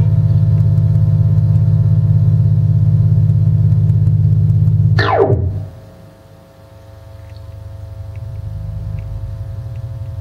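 Experimental electronic music: a loud, steady, low synthesizer drone that is cut off about halfway by one fast downward pitch sweep, after which the drone swells slowly back in.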